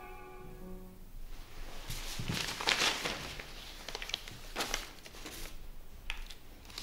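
The last notes of a music cue fade out, followed by a few irregular rustles and scrapes with some light ticks, the sound of handling or movement in a small room.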